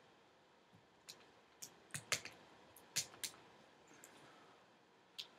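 Light, irregular clicks and ticks, about seven in all, from a small tool prying up the tape that holds the LCD cable on the back of a laptop screen panel.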